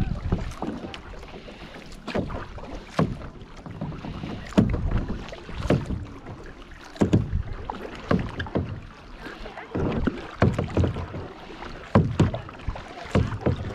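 Kayak paddling: a double-bladed paddle dipping and pulling through the lake water on alternating sides, a splash about once a second. Wind rumbles on the microphone underneath.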